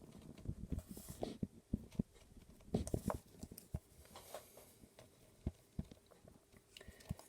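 Irregular small clicks and taps of a TowerPro 9g micro servo's plastic housing pieces being handled and pried at in an attempt to pull them apart, with a cluster of sharper clicks about three seconds in.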